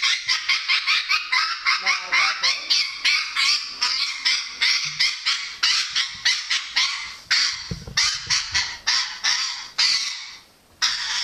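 A parrot screaming in loud, rapid squawks, about three or four a second, almost without a break and stopping shortly before the end. These are the distress calls of a parrot being wrapped and restrained in a towel.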